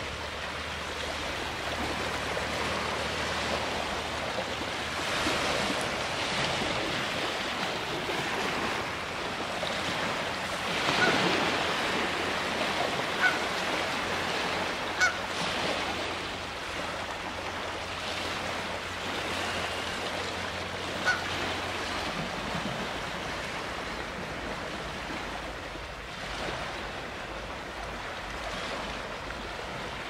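Small lake waves lapping and washing onto a pebble beach in a steady wash, with a Canada goose giving a few short honks spread through the middle.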